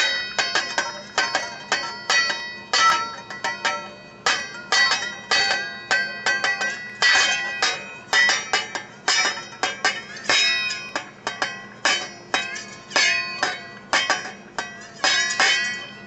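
Wire whisk striking and rattling against a metal pot lid in a quick, irregular run of strikes, several a second, with the lid ringing on a few steady bell-like tones between them.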